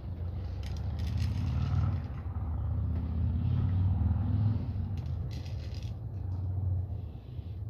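Low engine rumble of a vehicle that swells and then fades. Dry cat kibble rattles in a scoop and pours onto a plastic plate in two short bursts, about a second in and about five seconds in.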